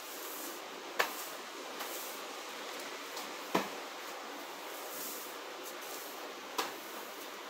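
Three short, sharp knocks, a few seconds apart, from things being handled in a small room, over a steady hiss.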